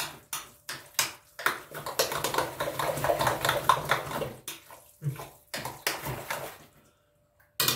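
A hand squeezing and mixing a wet minced-meat, onion and tomato lahmacun topping in a glass bowl: repeated wet squelches, thickest in the middle and thinning out, stopping shortly before the end.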